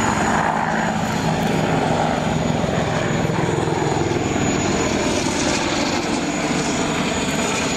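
Boeing AH-64D Apache attack helicopter flying a corkscrew manoeuvre, its main rotor and twin turboshaft engines running loud and steady with a rapid rotor chop.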